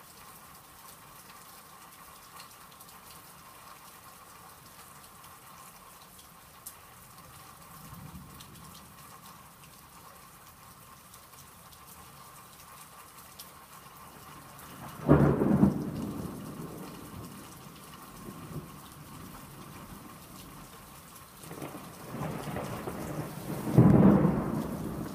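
Steady rain with thunder. A sudden loud crack of close thunder comes about halfway through and rumbles away. Near the end the thunder builds again to a second loud clap.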